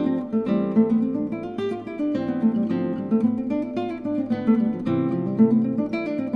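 Background music: an acoustic guitar playing a quick run of plucked notes, several a second.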